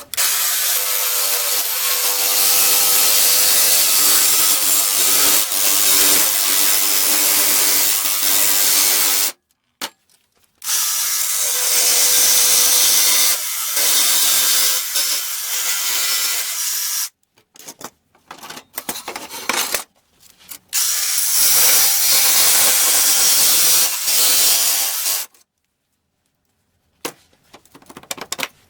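Handheld power tool running under load in three long runs of several seconds each, a steady motor whine under a loud hiss, with short stops and a few brief bursts in between.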